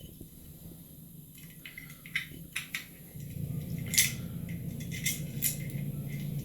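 Light clicks and clinks of metal parts and cable being handled while an X-ray unit's cable is fed through its arm, with a steady low hum coming in about three seconds in.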